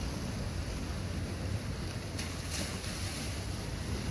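Sea waves washing and splashing against the boulders of a rock breakwater, with wind rumbling on the microphone.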